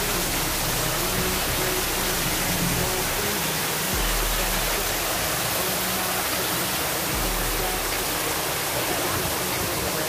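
Steady rush of water falling down an artificial rock waterfall, under background music with deep bass notes that come in about every three seconds.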